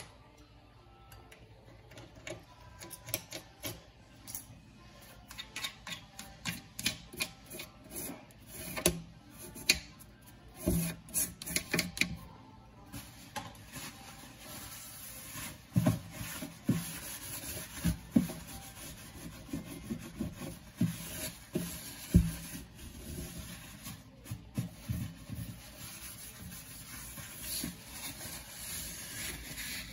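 Hand scrubbing and wiping along the joint between a stainless steel sink rim and a granite countertop, in irregular rubbing and scraping strokes with occasional light knocks.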